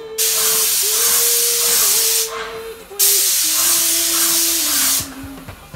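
Graco 390 airless paint sprayer gun spraying paint onto a wall in two bursts of about two seconds each: a loud, even hiss that starts and stops sharply as the trigger is pulled and released.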